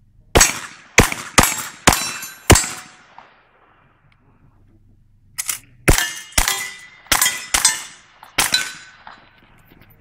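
Single-action revolver shots in two strings of five, fired about half a second apart, with a pause of roughly three seconds between the strings as one revolver is put away and the next drawn. Each shot is followed by a short ringing tail from the steel targets being hit.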